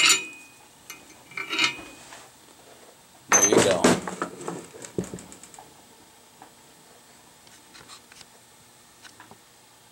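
Steel lug nut and washer clinking as they are taken off a newly installed wheel stud in an axle hub flange: two bouts of clatter, the louder about three and a half seconds in, then faint scattered clicks.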